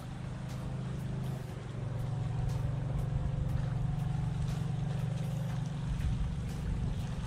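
A motorboat engine drones steadily, getting louder about a second and a half in. Under it, water drips and splashes as a cast net is hauled up out of shallow water.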